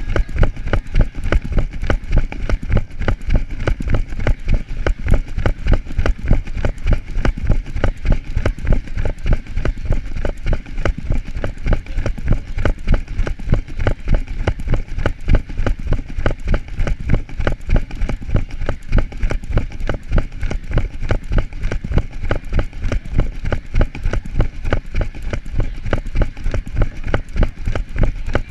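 A runner's footsteps striking an asphalt road at a fast, even pace, about three strides a second, each footfall a sharp thump.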